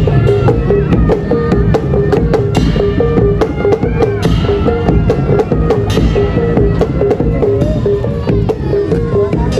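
Javanese gamelan ensemble playing barongan accompaniment: drums beat a fast, dense rhythm over kettle gongs sounding two notes in quick alternation, with a wavering melody line above.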